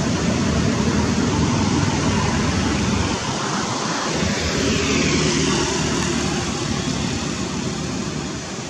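Steady outdoor background rumble, strongest in the low range, like road traffic or wind on the microphone, easing slightly near the end.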